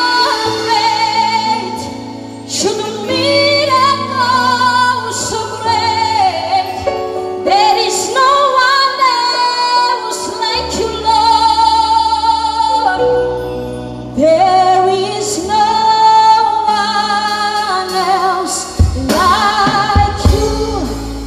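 Live gospel worship song: a woman sings the lead in long held notes with vibrato, over a live band with sustained bass notes and a drum kit striking now and then.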